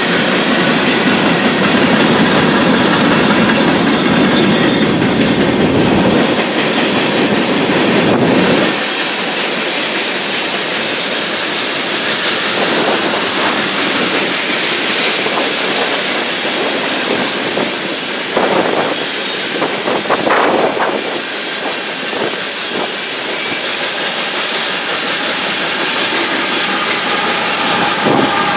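Freight cars of a long train rolling past close by: covered hoppers, gondolas and tank cars clattering over the rail joints, with bouts of wheel squeal. The rumble is heavier for the first several seconds, then lighter. The rear distributed-power diesel locomotives come by near the end.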